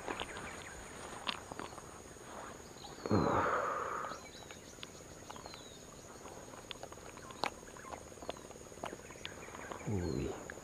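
Insects keeping up a steady high buzz, with scattered footsteps and rustling through grass and dirt. A louder rushing rustle about three seconds in and a short low grunt-like sound near the end.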